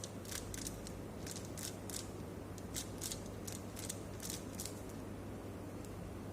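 Speed cube being turned through an F2L algorithm: a run of about a dozen quick plastic clicks as the layers snap round, irregularly spaced, over a steady low hum.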